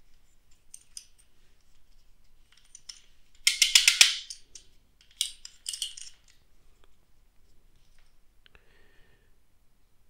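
Hard plastic parts of a GoPro suction cup mount clicking and rattling as they are handled and fitted together: a quick run of clicks about three and a half seconds in, the loudest, and a shorter run a little after five seconds, with faint scattered clicks between.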